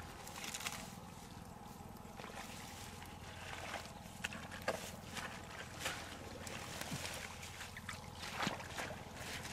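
Hands digging in wet mud among low plants: irregular wet squelches and rustling, with a few sharper clicks.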